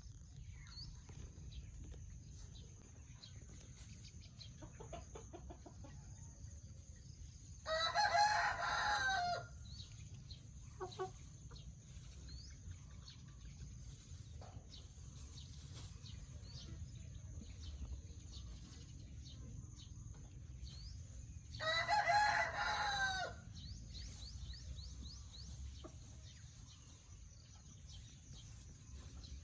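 A rooster crowing twice, each crow lasting about two seconds, the second coming about fourteen seconds after the first. Faint clucking and small chirps sound between the crows.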